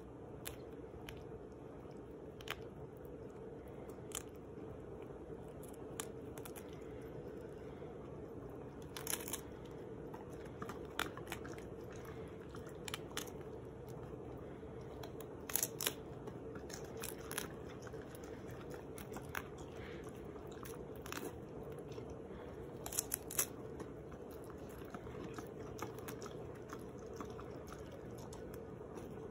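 A tabby cat and a husky biting and crunching a romaine lettuce leaf held out by hand: irregular crisp crunches, a few louder than the rest, over a faint steady hum.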